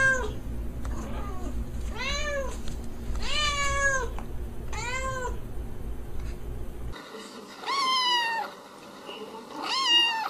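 A calico cat meowing four times over a low steady hum, then a kitten giving two higher-pitched meows.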